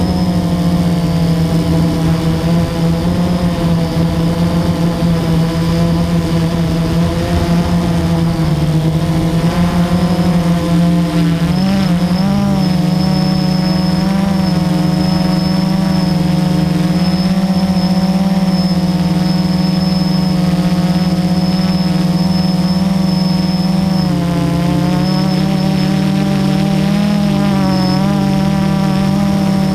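Quadcopter's electric motors and propellers humming loudly, heard from the GoPro mounted on the aircraft itself, with a steady high whine above the drone. The pitch wavers briefly about twelve seconds in and again near the end as the motors change speed.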